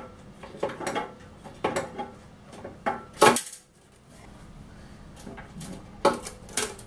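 Scattered clicks and clinks of a screwdriver and the loosened motherboard knocking against parts inside a 3D printer's housing, with one loud clack a little after three seconds in and two more clicks near the end.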